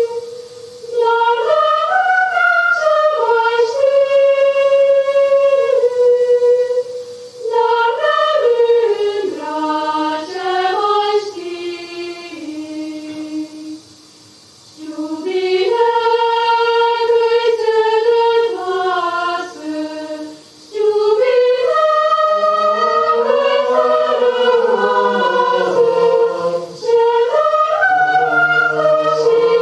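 Chamber choir singing a cappella, an arrangement of a Romanian folk song: phrases in the upper voices broken by short pauses, with lower voices coming in about two-thirds of the way through.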